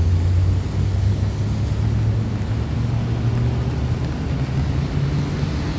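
Low rumble of city traffic, with an engine drone that rises slowly in pitch.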